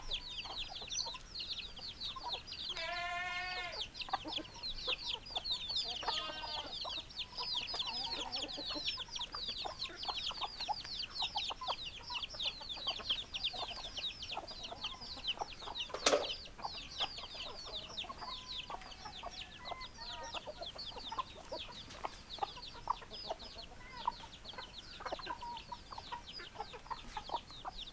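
Chickens calling: a continuous dense chorus of short, high, falling peeps, with lower clucks and a longer drawn-out call about three seconds in. A single sharp click about sixteen seconds in.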